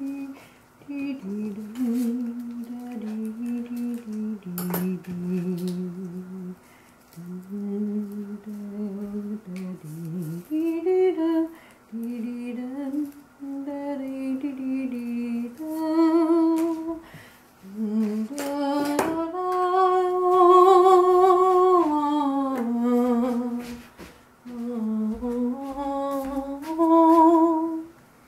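A person humming a slow, wandering tune in phrases a few seconds long with short pauses between, with a few light clicks, one sharper about five seconds in.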